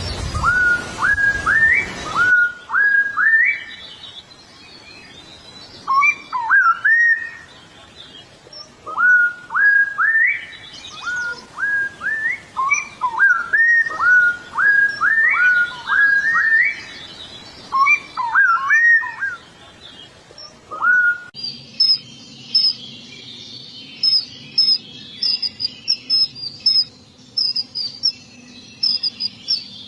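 A songbird singing a series of clear rising whistled notes, each sweeping upward, delivered in quick phrases with short pauses between. About two-thirds of the way through the sound switches to rapid, much higher-pitched chirping.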